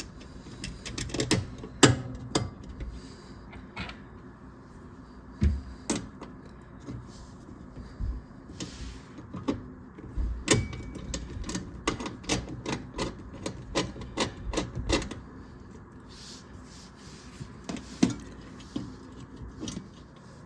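Irregular clicks, taps and light knocks of hand work on the dishwasher's electrical junction box, the cover being put back on and the power wires tucked back inside.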